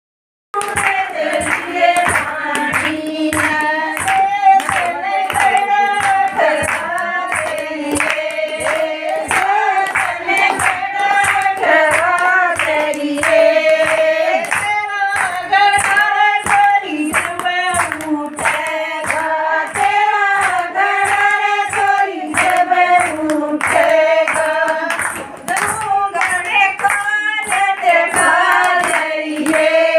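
Group of women singing a Haryanvi folk song in unison, with hand claps keeping a steady beat; it starts about half a second in.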